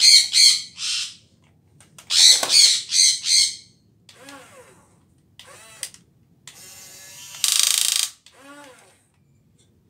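Toy remote-control excavator's small electric motors and plastic gearboxes whirring in short bursts as the boom and bucket move: a few quick pulses at the start, another cluster about two seconds in, and a steadier whir near the end. A bird squawks a few times in between.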